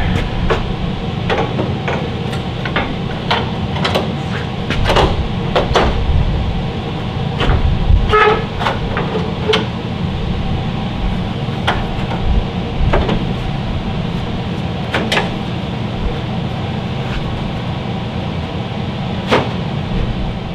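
Truck grille being handled and fitted into the front of the truck: scattered clicks, knocks and light rattles as it is set against the core support, over a steady background hum.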